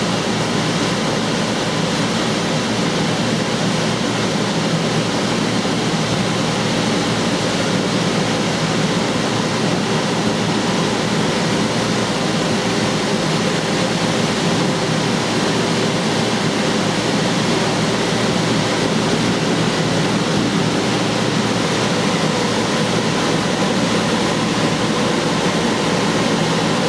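Electric air blower keeping an inflatable bounce house inflated: a loud, steady rushing whirr with a faint hum.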